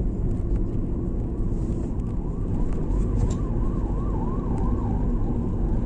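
Steady low rumble inside a moving car's cabin, with a faint siren wailing up and down about three times a second from about two seconds in until near the end.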